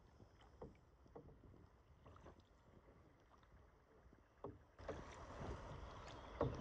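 Canoe paddling: paddles dipping and pulling through the water, with small knocks of paddle against hull. About five seconds in, a louder steady hiss sets in abruptly, with sharper knocks over it.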